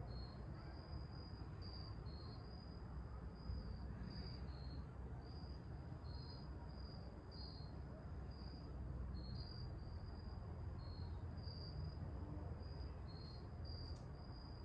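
Crickets chirping: short chirps about two a second, alternating between two slightly different pitches, over a low steady background rumble.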